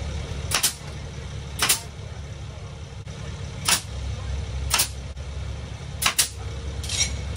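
Pneumatic nail gun firing nails overhead into pine tongue-and-groove ceiling boards: sharp single shots roughly a second apart, with a quick double shot a little after six seconds in.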